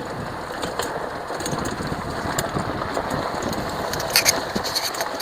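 A vehicle's engine running steadily as it drives, with a brief rattle a little after four seconds in.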